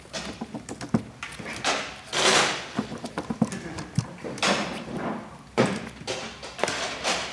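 Sleeved playing cards handled on a playmat: irregular light clicks and taps as cards are set down and squared, with several short rustling shuffles of the deck.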